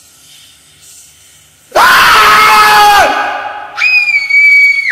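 Horror sound effect of screaming: faint hiss, then about two seconds in a loud scream that drops in pitch and fades, followed by a second, higher shriek held for about a second that cuts off suddenly.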